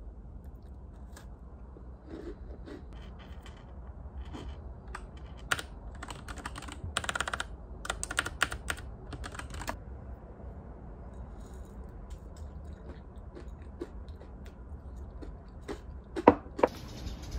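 Typing on a computer keyboard: quick runs of key clicks in the middle and scattered single keystrokes. Near the end come two sharp knocks, the loudest sounds.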